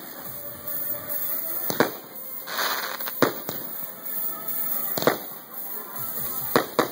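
Aerial fireworks shells bursting overhead: about six sharp bangs a second or two apart, some in quick pairs, with a brief hiss just before the middle.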